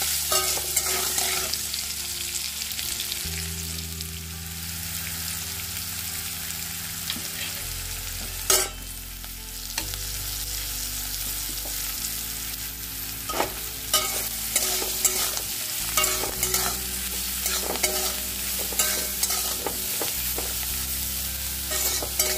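Potato and brinjal pieces sizzling as they fry in mustard oil in an aluminium kadai, while a metal spatula stirs and scrapes them around the pan. A loud spatula knock on the pan comes about eight seconds in, and more knocks and scrapes follow through the second half.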